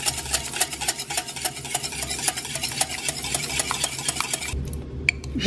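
Wire whisk beating egg yolks with oil and melted butter in a mixing bowl: a quick, even run of clicks as the wires strike the bowl. The whisking stops near the end.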